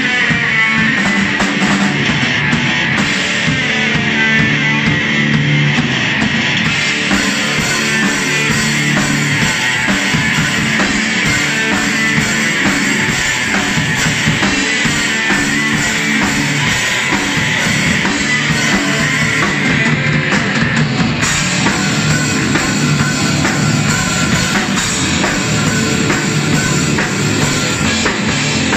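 Rock band playing live and loud: electric guitars, bass guitar and a drum kit.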